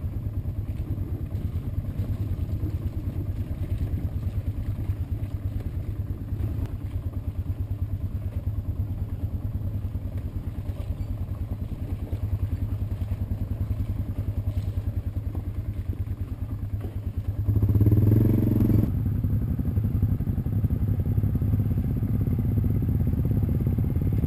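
Off-road vehicle engine running steadily at low trail speed. It revs up louder for about a second and a half roughly 17 seconds in, then carries on a little louder.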